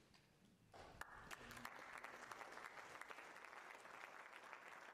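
An audience applauding, starting faintly about a second in after a brief hush.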